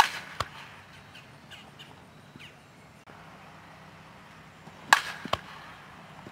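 Softball bat striking a front-tossed softball twice, about five seconds apart: two sharp cracks of contact in batting practice, each followed under half a second later by a fainter knock.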